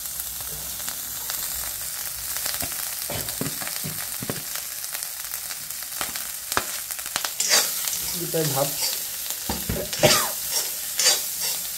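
Cooked rice frying in hot oil in an iron kadai, with a steady sizzle as the rice is tipped in. From about 7.5 seconds in, a metal spoon stirs it, clinking and scraping against the pan.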